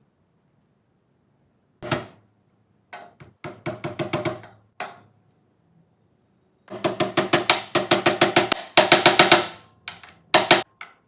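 Hammer driving small nails through rubber supports into the sewing table: a single strike about two seconds in, a short run of quick taps a second later, then fast, loud runs of taps from about seven seconds on.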